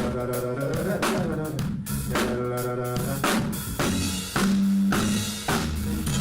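Jazz-soul band playing an instrumental groove: a drum kit's kick, snare and rimshot hits over sustained bass notes.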